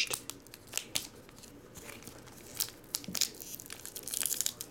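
Foil wrapper of a Goodwin Champions trading-card pack crinkling in the hands with scattered crackles, then being torn open in a denser rip about four seconds in.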